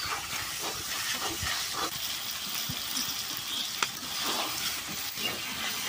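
Chicken frying in oil and ground sesame in a metal kadai, a steady sizzle with a few scattered scrapes and taps of a metal spatula stirring it.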